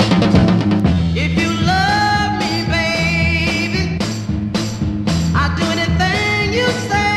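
R&B record playing from a vinyl 45 single: steady bass and drums, with a wavering lead melody line that comes in about a second in and again around five seconds.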